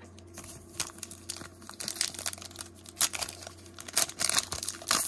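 Foil wrapper of a Mandalorian trading card pack being crinkled and torn open by hand: a run of irregular sharp crackles that grow louder toward the end.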